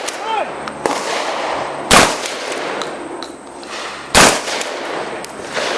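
Two 12-gauge shotgun shots, about two seconds apart, each followed by a short echo, with fainter sharp clacks between them.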